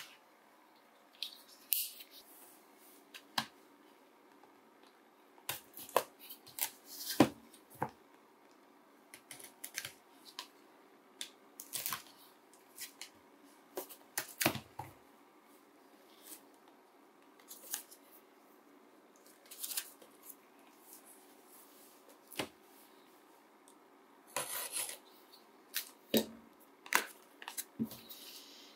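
Small white cardboard boxes handled on a desk mat: scattered sharp taps and knocks as they are picked up and set down, with short rustles and scrapes of cardboard, including a longer rustling scrape near the end.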